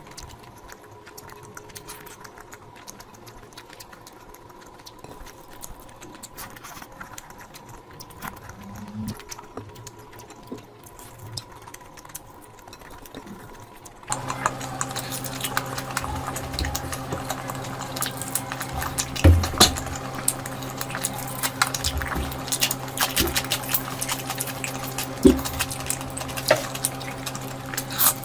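Close-miked eating: wet chewing and mouth clicks, fast and irregular. About halfway through the clip changes and a steady low hum sits under the chewing, with a few louder smacks near the end.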